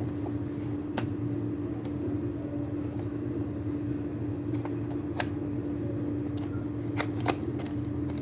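Scattered clicks and light taps of a small cardboard product box being handled and opened, over a steady low electrical hum.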